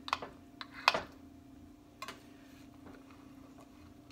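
Metal server clicking and scraping against a ceramic baking dish as it cuts into a casserole: a few sharp clicks in the first second, the loudest just before one second in, and another about two seconds in. A steady low hum sits underneath.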